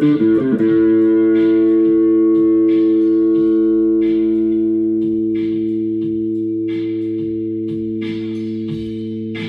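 White Gibson SG electric guitar played through an amp: a quick run of notes, then a chord held and left to ring, fading slowly. Under it runs a backing beat with a short light hit about every second and a quarter.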